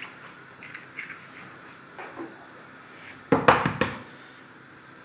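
An egg knocked to crack its shell: a quick cluster of sharp knocks about three and a half seconds in, with a few faint clicks of shell and fingers at the mug before it.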